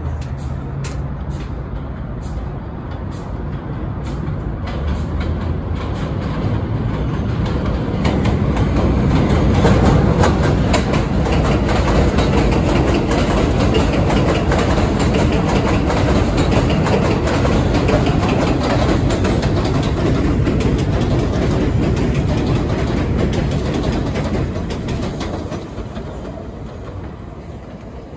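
New York City subway train running along the elevated steel line: wheels clattering on the rails, swelling to a loud pass through the middle and fading away near the end.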